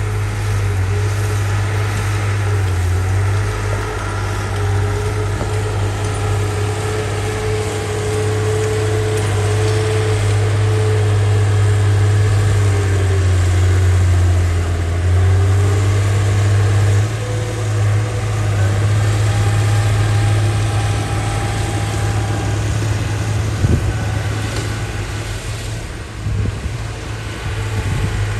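Diesel engine of heavy earthmoving machinery running steadily with a low drone, a whining tone above it that dips and recovers in pitch around the middle. A single sharp knock comes about three-quarters of the way through.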